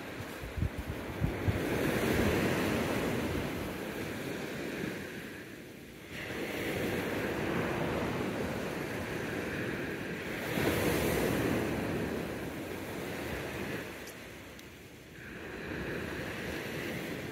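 Ocean surf breaking on a sandy beach: four waves roll in and wash up one after another, swelling and easing about every four to five seconds. Wind buffets the microphone with a few low thumps in the first second or so.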